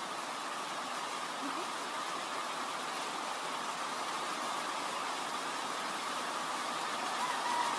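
Steady rainfall: an even hiss with no breaks.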